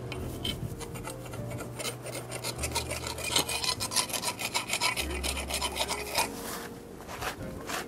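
Gloved hands scraping and pulling at soil, weeds and grass roots with a small hand weeding tool: a rapid run of scratchy scrapes, thickest through the middle and easing off near the end.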